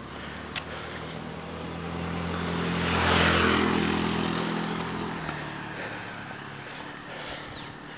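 Motorcycle passing close by: its engine grows louder, is loudest about three seconds in, then fades as it rides away. A single sharp click about half a second in.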